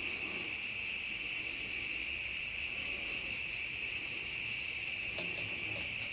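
Chorus of crickets trilling steadily on one high pitch, with a few faint clicks a little after five seconds in.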